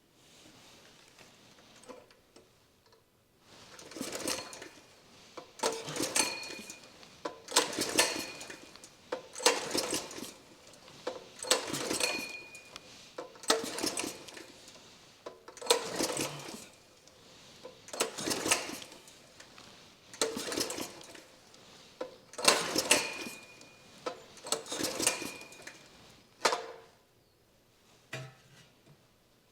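Mini bike's small engine being cranked by hand on its recoil pull-starter with the spark plug removed, about a dozen pulls one every two seconds or so, several with a short high squeak. A Schrader spark-plug-hole tire pump is fitted in place of the plug but is not pumping, which the owner puts down to its old rubber diaphragm probably no longer working.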